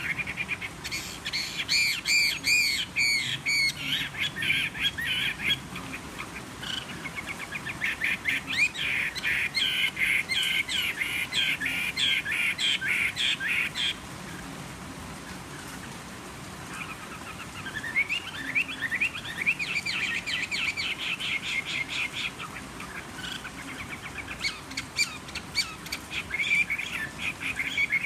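Caged Chinese hwamei (Garrulax canorus), a fighting bird, singing in four long bouts of rapid, varied phrases with short pauses between them. Its owner describes its voice as slightly hoarse.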